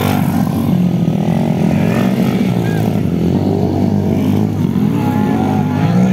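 Several dirt-bike engines running and revving at once, their pitch rising and falling.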